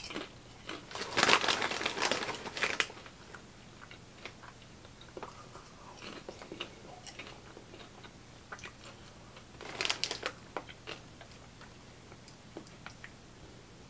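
Close-up chewing and crunching of Flamin' Hot Smartfood popcorn. The crunching is loudest in the first few seconds, with another burst about ten seconds in and faint chewing clicks between.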